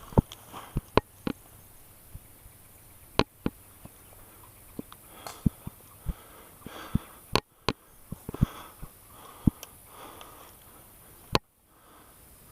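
Close breathing and sniffing with scattered sharp clicks and snaps, a few of them loud, about three, seven and eleven seconds in.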